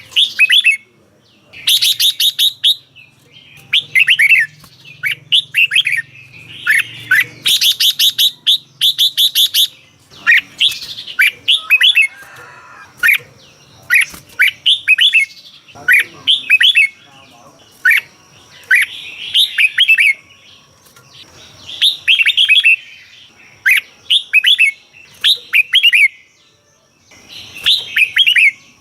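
Red-whiskered bulbul singing: short phrases of clear, sweeping whistled notes repeated every second or two, with a few fast, harsh rattling bursts among them.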